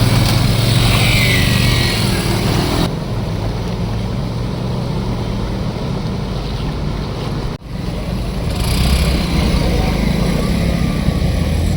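Motor vehicles running through floodwater: a steady low engine hum with the rush and wash of water, changing abruptly about three seconds in and again near eight seconds.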